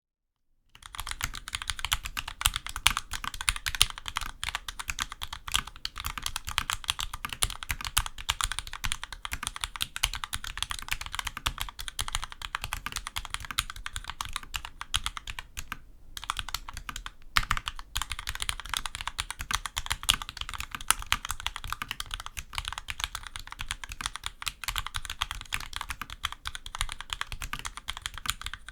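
Steady typing on a Magicforce 68 mechanical keyboard fitted with vintage Cherry MX Black linear switches, cleaned and left unlubricated, under low-profile doubleshot keycaps. Keystrokes follow one another in a dense stream, starting about a second in, with one brief pause about halfway through.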